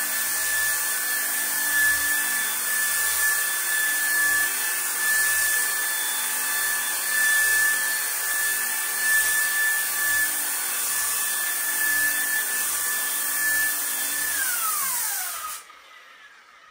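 Electric sander spinning a diamond polishing disc at high speed, wet-sanding worn porcelain on a bathtub bottom, with a steady high whine over hiss. About fourteen seconds in, the whine falls in pitch as the motor winds down, and it stops a second later.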